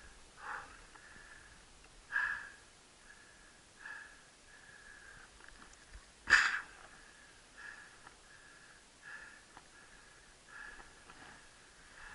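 A cyclist breathing hard on a climb: short, sharp breaths about every second and a half, one much louder about halfway through.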